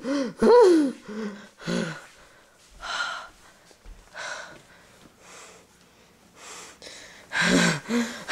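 A person's wailing groans, two rising-and-falling cries in the first second followed by short grunts, then a string of breathy gasps about a second apart, with more groaning near the end.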